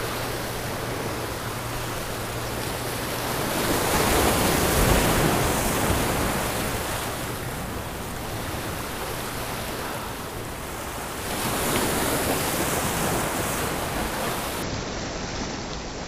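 Surf washing against jetty rocks, a steady rush that swells twice, about four and eleven seconds in, as waves surge over the stones.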